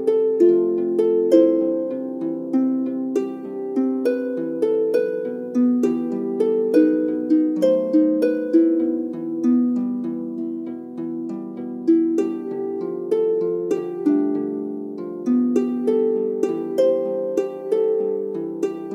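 Background instrumental music played on a harp: a flowing melody of plucked notes that ring on and overlap.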